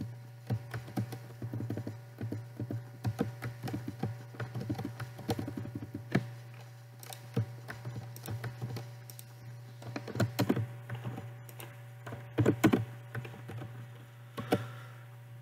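Typing on a computer keyboard: quick, irregular key clicks with short pauses, over a steady low hum.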